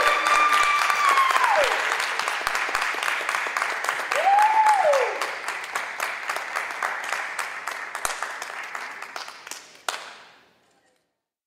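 Audience applauding, with two long whooping cheers, one at the start and one about four seconds in. The applause fades and then cuts off abruptly near the end.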